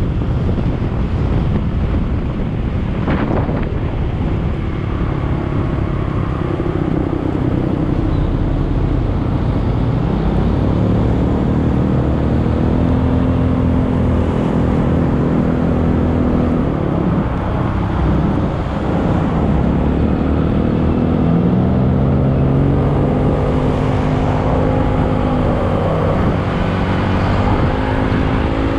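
A motor vehicle's engine running over a steady rush of noise, its pitch climbing and levelling off in steps several times. A single sharp click about three seconds in.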